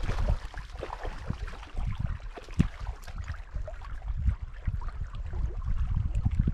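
Wind buffeting the microphone, a low uneven rumble, over the hiss of lake water lapping at the shore, with scattered small clicks and knocks.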